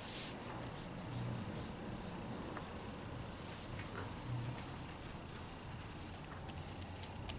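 Stylus nib scratching and tapping on a Wacom pen display's screen in a quick run of short strokes, over a low steady hum.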